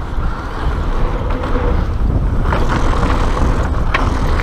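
Mountain bike descending a gravel trail at speed: wind rumbling on the camera microphone, tyres rolling over loose gravel, and a few sharp rattles as the bike hits bumps.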